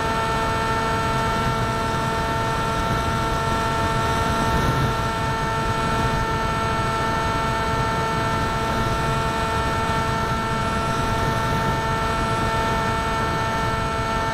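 RC airplane's motor and propeller running at a steady pitch, with wind rushing over the airframe, picked up by a camera mounted on board.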